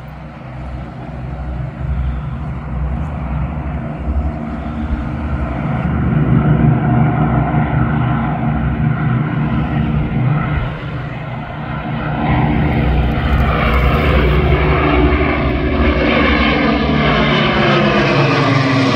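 Avro Lancaster bomber's four Rolls-Royce Merlin V12 engines running as it flies in low, growing steadily louder. Near the end it passes overhead and the engine note falls in pitch.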